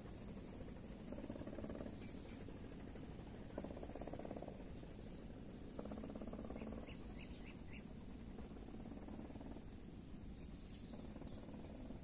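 Faint outdoor chorus: a steady high-pitched insect whine, a few short high bird chirps, and low buzzing sounds about a second long that come every couple of seconds.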